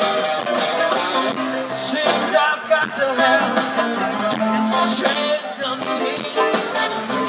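Live rock band playing on stage: electric and acoustic guitars over drums, with a man singing.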